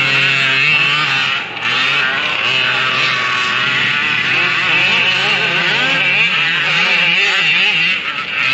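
Several 1/5-scale gas RC buggies' small two-stroke engines revving up and down together as they race, their pitches rising and falling over one another. The engines briefly drop off about one and a half seconds in and again near the end.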